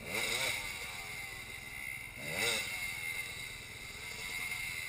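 Dirt bike engine revved in two quick blips about two seconds apart, the pitch rising sharply each time, as the bike is worked through rough trail.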